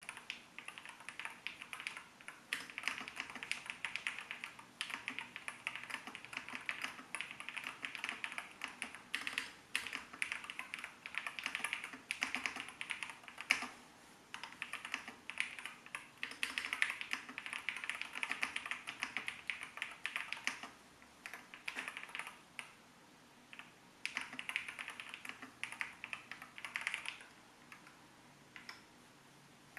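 Typing on an Iqunix EZ63 Hall-effect keyboard with Gateron Magnetic Jade Pro magnetic switches. Fast, continuous keystroke clacking is broken by a few short pauses, with an occasional louder single key strike, and stops shortly before the end.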